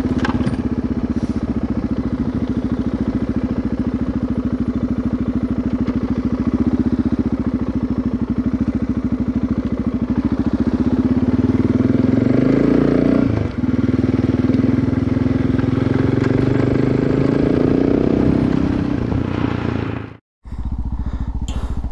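Adventure motorcycle engine running on a dirt track at steady speed, then revving up about halfway through, with a short dip like a gear change before it climbs again and eases off. After a sudden break near the end, a steady low engine sound follows, like the bike idling.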